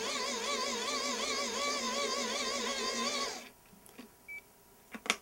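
Whine of a hand-crank dynamo charger being cranked to charge a phone, its pitch rising and falling with each turn of the crank. The whine stops suddenly about three and a half seconds in, followed by a short electronic beep as the phone stops charging.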